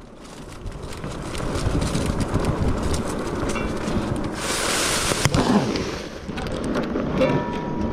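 Zugo e-bike riding over a dirt trail: a steady rumble and rattle of tyres and frame with wind on the microphone. There is a short hiss about four and a half seconds in, ending in a sharp click.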